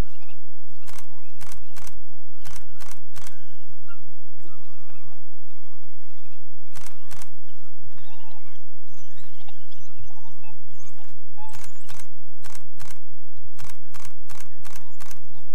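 African wild dogs yelping and twittering in short, squeaky calls as they play. Runs of sharp clicks come in quick bursts, the longest near the end, over a steady low hum.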